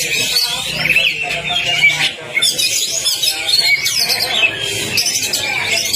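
Oriental magpie-robin (kacer) singing a fast, varied song of quick rising and falling notes that follow one another without a break.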